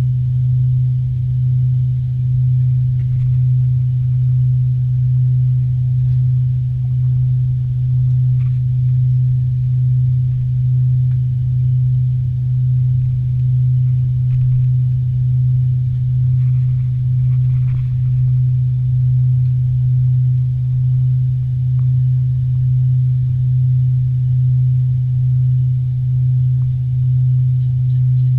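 Low, steady drone in the cabin of an Avro RJ85 with its four turbofan engines at low power, swelling and fading in an even slow throb about once a second.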